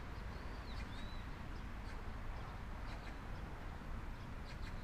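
A few short, high, arching bird chirps about a second in, over a steady low rumble, with a few faint sharp knocks later on.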